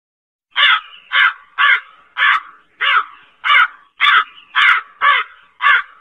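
A crow cawing: a rapid series of about ten harsh caws, roughly two a second, beginning about half a second in.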